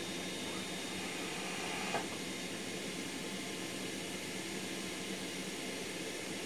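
A 5-peak-horsepower wet/dry shop vacuum running steadily, an even hiss of rushing air, with a faint knock about two seconds in.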